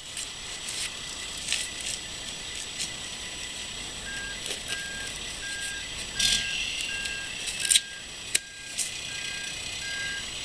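Rubbing, scraping and sharp clicks of a DueNorth rubber traction cleat being stretched and pulled over a muck boot by hand. From about four seconds in, a faint beep at one pitch repeats a few times a second.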